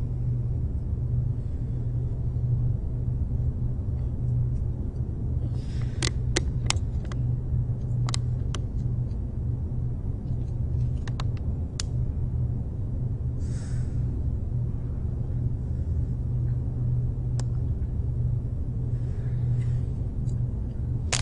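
Steady low rumbling hum, with a few faint sharp clicks scattered about six to twelve seconds in and once more later.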